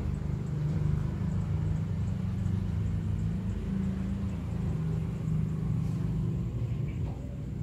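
A steady low hum with a rumble beneath it, like a motor or engine running.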